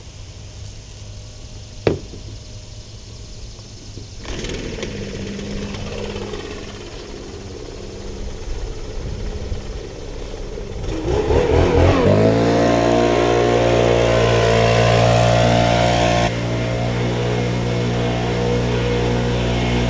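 Stand-on mower's engine speeding up about eleven seconds in, then running loud and steady at high speed.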